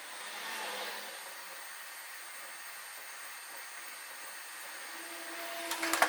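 Hot-air blower running steadily with a smooth airy hiss, heating the edges of a phone screen to soften its adhesive.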